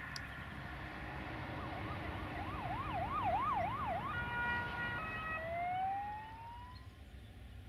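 A siren, wailing rapidly up and down about twice a second, then sounding several steady tones together and then a slow rising glide, over a low, steady rumble.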